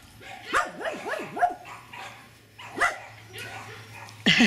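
Puppies barking and yapping in play as they tussle: a quick run of short yaps about half a second to a second and a half in, another near three seconds, and a louder call just before the end.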